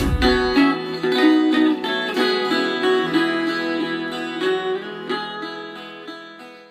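Viola caipira playing an instrumental passage of picked notes, fading out toward the end. A brief low thud sounds at the very start.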